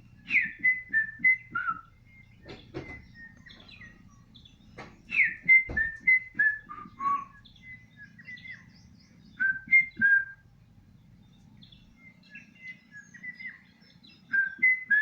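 A songbird singing phrases of clear whistled notes, each phrase a quick upsweep followed by several notes stepping downward, repeated four times with pauses between.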